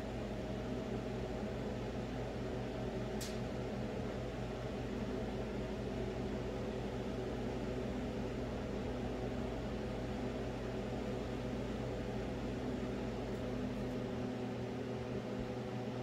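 Steady hum of a running appliance or fan in a small room, with one faint tick about three seconds in.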